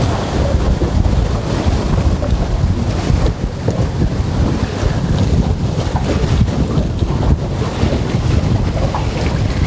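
Wind buffeting the microphone, a low gusting rumble, over the wash of choppy water against a small boat.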